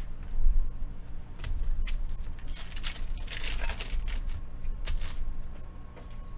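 Trading cards and foil pack wrappers being handled: light clicks and rustling, with a longer crinkle about three seconds in.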